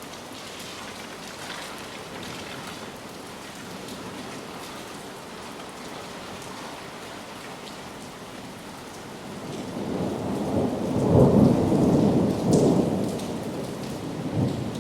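Heavy rain falling steadily, with a roll of thunder that swells in about two-thirds of the way through, peaks for a couple of seconds and then dies away.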